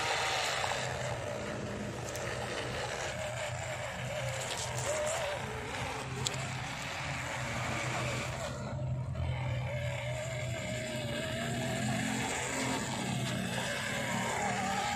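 Electric motor and gearbox of an MN99S 1:12 scale RC crawler whining, the pitch wavering up and down with the throttle, over a hiss of the tyres working through dirt and leaf litter.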